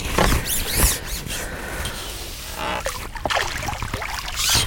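Water splashing and sloshing as a landing net is dipped into a lake and a small mirror carp swims out of it, with a louder splash near the end.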